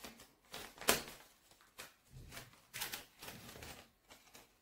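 A sheet of paper rustling and crackling in the hands as a thin broom-straw stick is worked through holes in it: several short crisp rustles, the sharpest about a second in.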